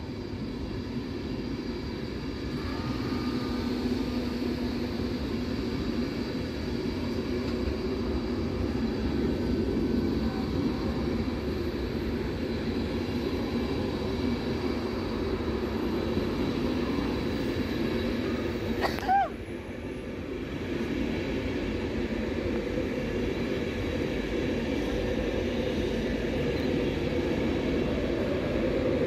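Cross Country HST Mark 3 coaches rolling past at slow speed, a steady low rumble of wheels and bogies on the track. About two-thirds of the way through it breaks off briefly with a short chirp, then the train rumble resumes and grows louder.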